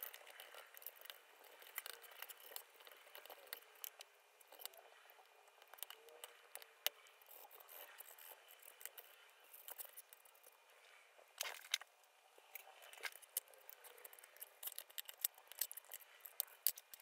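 Faint, scattered clicks and scrapes of a metal palette knife against a tin Artista watercolor box and its paint pans as the pans are pried out for cleaning. A short cluster of clicks comes about eleven and a half seconds in, and they grow busier toward the end.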